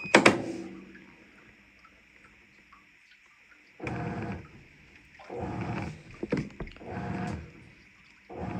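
Avanti top-load washing machine agitating: after a sharp click near the start and a few seconds of quiet, the agitator motor starts up about four seconds in and runs in short strokes under a second long, about one every 1.4 seconds, churning the sudsy load.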